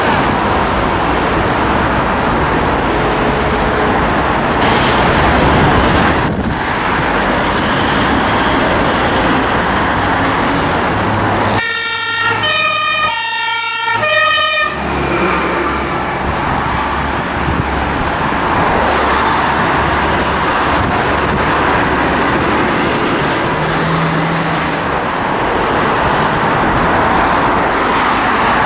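Steady road traffic noise, and about twelve seconds in a fire engine's German two-tone siren (Martinshorn) sounds for about three seconds, switching back and forth between a high and a low tone.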